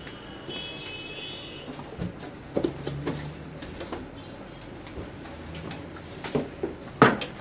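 An Orbit BG-8001 electric grill being handled on a wooden countertop: scattered light knocks and clicks, with one sharp knock about seven seconds in.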